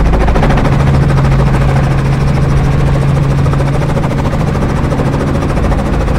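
Light helicopter's engine and rotor running steadily, heard from inside the cabin: a loud, even drone with a strong low hum, easing slightly in level toward the end.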